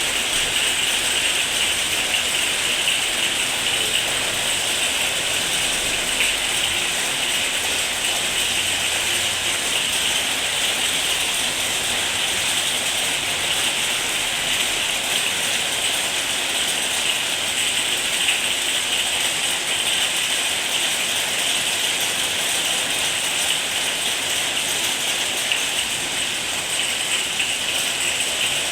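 Heavy rain falling steadily: a dense, even hiss of drops that holds at one level, with no thunder or other distinct event standing out.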